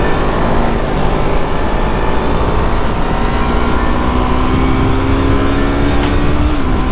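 Yamaha R25's parallel-twin engine running on its stock exhaust while riding, its pitch climbing slowly under steady acceleration and dipping slightly near the end, with wind rushing over the microphone.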